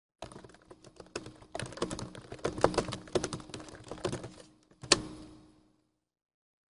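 Computer keyboard typing: a quick, uneven run of key clicks lasting about five seconds, ending with one sharper click, then stopping.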